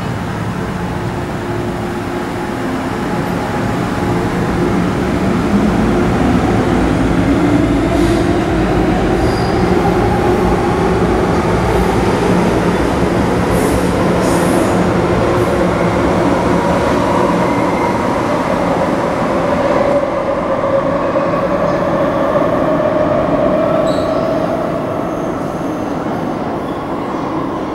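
MTR Kwun Tong Line electric train pulling out of an underground station and accelerating. Its traction motors give a whine that rises steadily in pitch as it gathers speed over the rumble of the wheels, and the sound falls away near the end as the train leaves.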